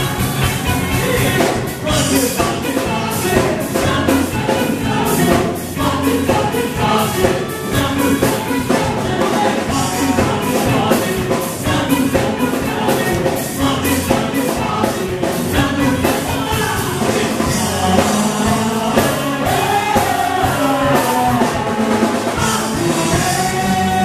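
Live Christian worship band playing: several singers in unison over electric guitars and a drum kit keeping a steady beat.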